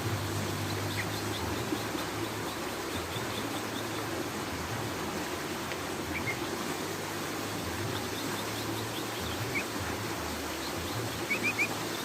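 Small bird giving short, sparse chirps, ending with a quick run of three louder notes near the end, over a steady outdoor rushing hiss.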